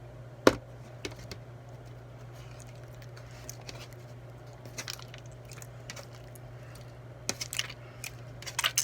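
Slime and its containers being handled while lotion and conditioner go into a batch: one sharp click about half a second in, then scattered soft clicks and squishes, over a steady low hum.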